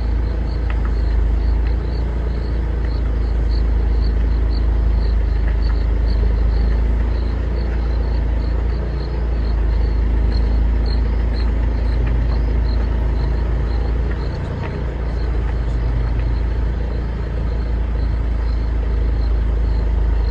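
A vehicle engine runs steadily with a low rumble. A faint regular ticking comes about twice a second.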